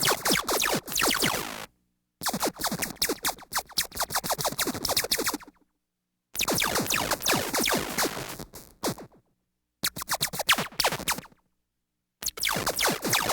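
Synthesized sci-fi laser-gun fire: rapid volleys of sharp electronic zaps, each volley lasting a few seconds, with short silent gaps between them.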